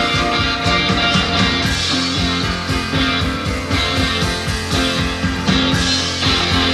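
Rock music with guitar playing back from a Fisher ER-8155 8-track and cassette deck.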